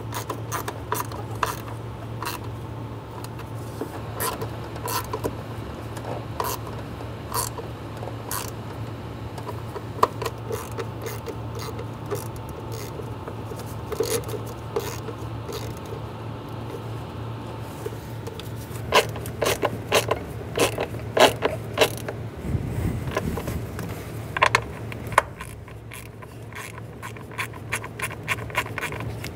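Ratchet wrench clicking as bolts are run down and snugged, in slow single strokes at first and then in quicker runs of clicks later on, over a steady low hum.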